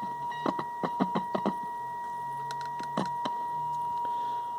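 Vintage Panasonic RF-597 portable radio's speaker playing a steady, high test tone from a signal generator, broken by a run of sharp crackles and clicks about half a second to a second and a half in and twice more about three seconds in: the crackle Jordan puts down to dirty tuner contacts.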